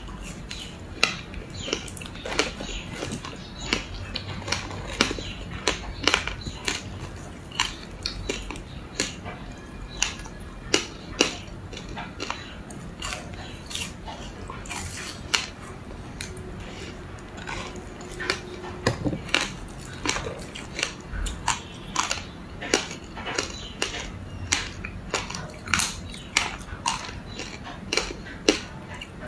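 Close-up crunching of frozen passion fruit ice being bitten and chewed: sharp, irregular crunches, at times several a second.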